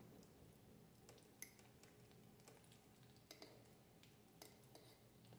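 Faint eating sounds, close to near silence: a few soft clicks and wet squishes as a plate of spaghetti with sausage is eaten.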